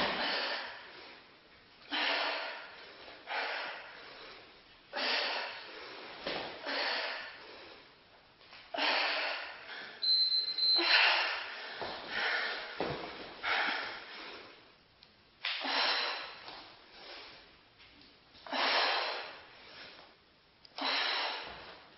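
A woman breathing hard from exertion during bodyweight exercise. A sharp exhale comes every second or two, each one fading away before the next.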